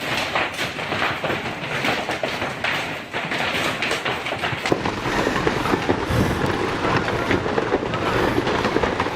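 Heavy hailstorm: hailstones pelting down in a dense, continuous clatter of countless impacts.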